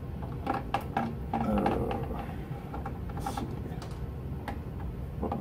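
Small clicks and scrapes of a screwdriver working the screws of a plastic Nerf Stryfe shell and hands handling the blaster, over a low steady hum.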